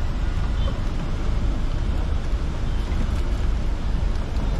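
Steady low rumble of a coach bus's engine and cabin noise, heard from inside the bus.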